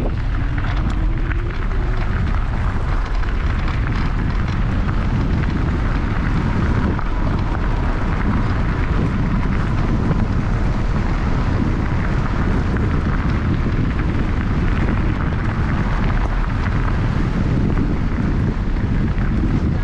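Wind buffeting the microphone over the crunch of knobby mountain bike tyres rolling on loose gravel: a steady, loud rushing noise.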